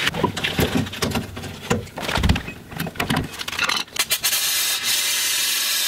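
Metal tools clicking and scraping against rusted drum-brake parking brake hardware, then, about four seconds in, the steady hiss of an aerosol can spraying through a red extension straw onto the rusted parts, cut off abruptly near the end.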